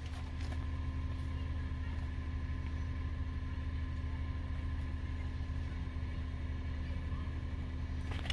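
Steady low hum and rumble of a car idling, heard from inside the cabin, with a few faint rustles of a cardboard box being handled near the start.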